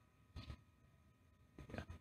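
Near silence: faint background ambience, with one brief faint knock about half a second in.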